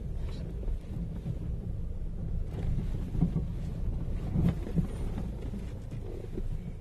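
Car rumbling along slowly over a rough, potholed dirt lane, heard inside the cabin, with a few short knocks from the wheels dropping into holes.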